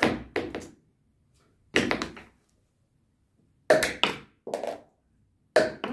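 Marker pens thrown at tall cylinders on a table, knocking and clattering as they hit and land: four clusters of knocks, some with a quick bounce or two after the first hit.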